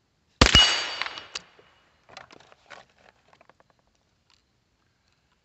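A single shot from a Keystone Cricket .22 single-shot bolt-action rifle: a sharp crack about half a second in, followed at once by the ring of a hit on a steel target that dies away over about a second. A few light clicks follow as the bolt is worked.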